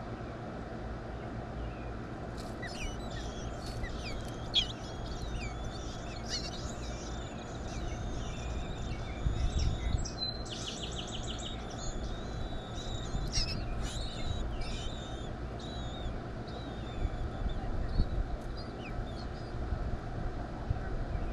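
Backyard birds chirping and calling, short scattered notes with a quick trill of about ten rapid notes about halfway through, over a steady low outdoor rumble.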